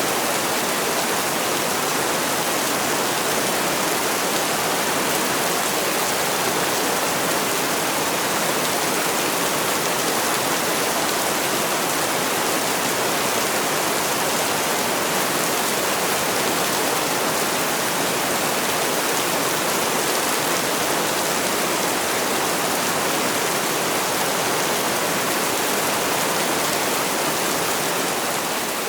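Heavy rain falling steadily as a dense, even hiss with no single drops standing out; it begins to fade out near the end.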